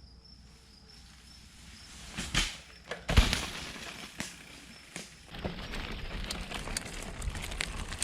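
Mountain bike riding over a dirt trail: a few sharp knocks and rattles from bumps, then a steady rough rolling noise from about five seconds in.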